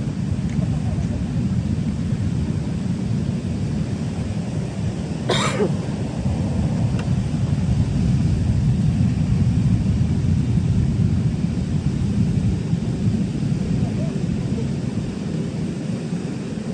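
Steady low rumble with no clear pitch, and one brief sharp click about five seconds in.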